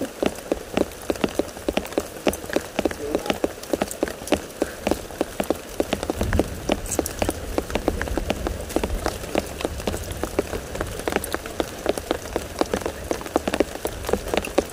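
Light rain: many irregular drops ticking on the shelter's roof, several a second, over a low rumble.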